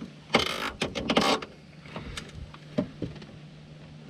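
A nylon zip tie being pulled tight through its ratchet by hand: a zipping rasp about half a second in, then a quicker ratcheting zip around a second in, followed by a few light clicks.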